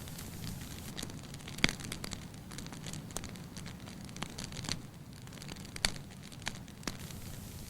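Wood fire in a fireplace crackling, with irregular sharp pops over a steady low hiss; the biggest pops come about two seconds in and again near six seconds.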